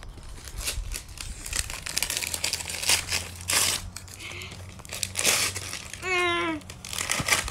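Gift wrapping paper being torn off a cardboard box and crumpled in a run of irregular rustles and rips. A brief wavering voice sound comes about six seconds in.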